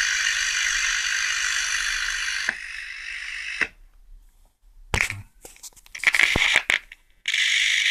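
Panasonic RX-FS60 radio cassette recorder's loudspeaker hissing with static while the legs of its volume control are bridged. The hiss cuts out a few seconds in, then crackles and pops as contact is broken and made again, and returns near the end. Sound reaching the speaker with the volume control bypassed is the sign that the volume control is faulty.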